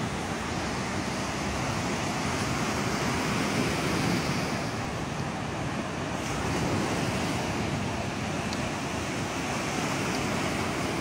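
Pacific Ocean surf breaking and washing up the shore, a steady rush that swells and eases a couple of times.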